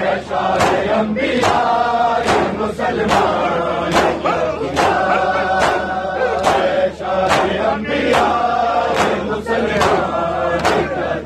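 A crowd of men doing matam, striking their chests with their hands in unison about twice a second, while chanting a noha together.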